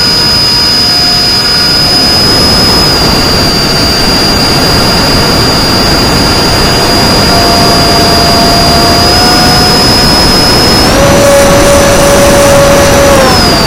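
Electric motor and propeller of an FPV flying wing whining at a steady pitch over loud wind rush. The whine steps up and down a few times with throttle changes and glides down near the end as the throttle is cut back.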